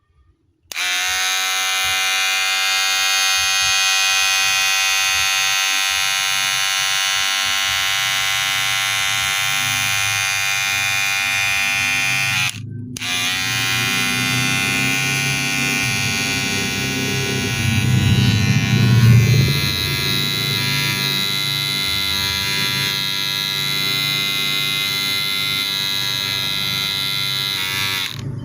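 Wahl cordless hair clipper running with a steady electric buzz. It switches on about a second in, cuts out briefly near the middle and starts again. It gets louder and rougher low down for a few seconds in the second half.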